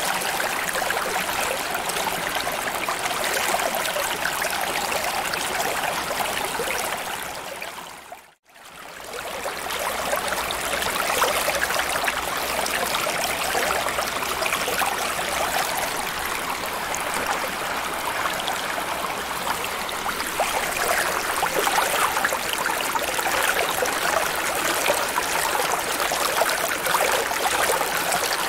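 Underwater ambience of steady rushing, trickling water with fine crackle. About eight seconds in it fades briefly to near silence and comes back up over a second or two, like a loop or edit point in the track.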